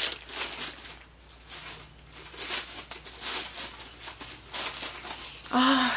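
Packaging rustling and crinkling as it is handled, in irregular bursts, with a brief vocal sound near the end.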